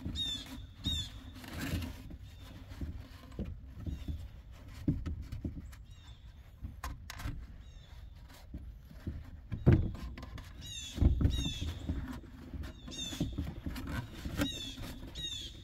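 Short bird chirps repeating every second or so, over irregular knocks and thumps. The loudest thumps come about ten and eleven seconds in.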